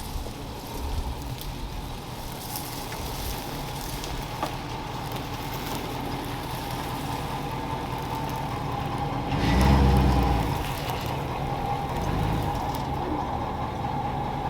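Dually pickup truck running, a steady low engine rumble with a louder low swell about ten seconds in.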